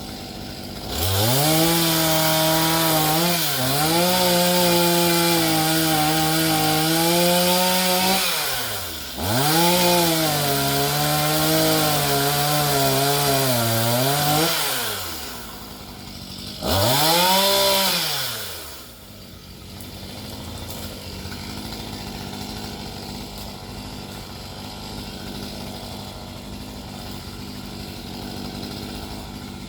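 Gas chainsaw revved up to high speed three times, two long runs and then a short one, dropping back between each. It then settles to a steady low idle for the last ten seconds.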